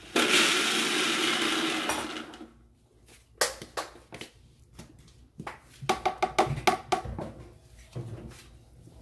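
Electric mixer-grinder running for about two seconds as it blends onion, tomato and ginger into a paste, then stopping. After it, a string of clicks and knocks as the jar's lid is handled and lifted off.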